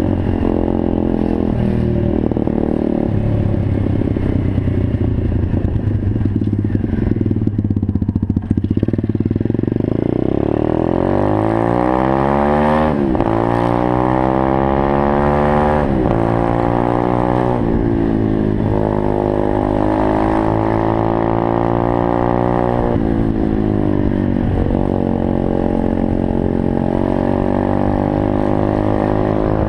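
A 125cc single-cylinder four-stroke pit bike engine under way on the road. Its pitch holds fairly level for several seconds, then climbs and drops back sharply several times as the bike accelerates and shifts up through the gears.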